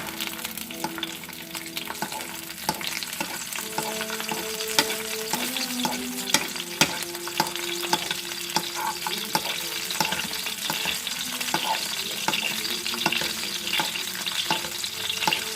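Egg frying in a pan: a steady sizzle with frequent clicks and scrapes of a utensil working the egg against the pan.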